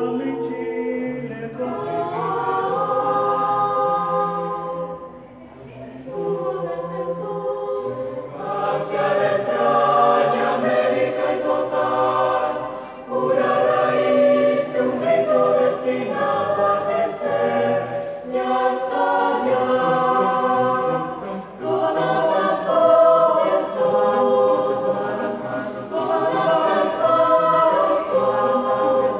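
A mixed youth choir of boys' and girls' voices singing a cappella in several parts. The notes are held long, in phrases with short breaks between them.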